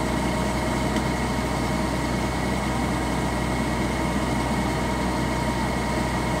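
Kubota DC-70 combine harvester's diesel engine running steadily, an even drone with a faint steady hum of tones over it.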